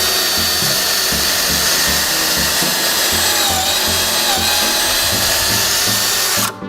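Power drill spinning a stepped pocket-hole bit and boring a pocket hole through a Kreg Jig Mini's guide into 3/4-inch drawer-side stock. It runs loud and steady, its pitch dipping briefly partway through as the bit bites, then cuts off abruptly near the end.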